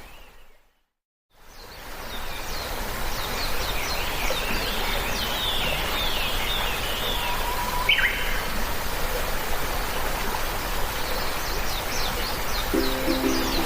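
Several birds chirping and calling over a steady rushing background. The sound cuts out completely for about a second near the start, and a few notes of music come in near the end.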